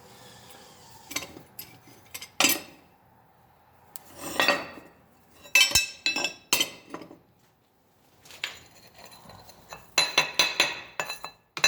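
Metal parts clinking and clanking as they are handled and set down: scattered single ringing clinks, then a quick run of them near the end.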